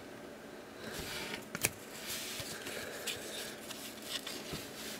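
Faint rustling and sliding of cardboard baseball cards being moved between hands, with a sharp tick about a second and a half in.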